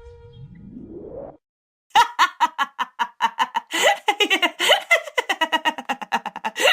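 A woman laughing hard in quick, rapid bursts, starting about two seconds in. Before the laughter, a brief steady tone ends and a short rising glide is heard.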